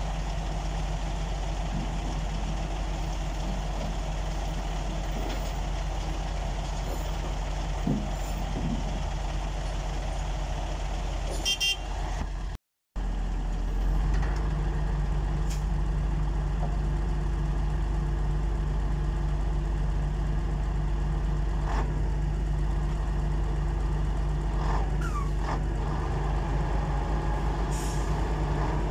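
Heavy diesel engine idling steadily with a low, even drone. The sound cuts out for a moment about halfway through.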